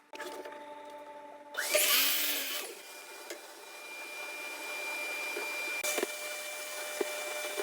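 Power tool motor running with a steady whine, with a loud burst of the tool working into hickory about two seconds in.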